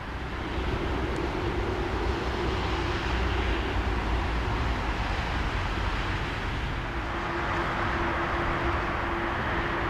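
Distant Boeing 747-8 jet engines running at taxi power: a steady rumble with a humming tone that fades in the middle and returns after about seven seconds.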